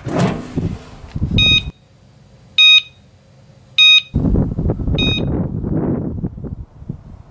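Wireless SkyLink garage door monitor receiver beeping four times, about a second apart: its alert that the mailbox door sensor has tripped. Rough outdoor wind and handling noise on the microphone comes before the beeps and again from about four seconds in.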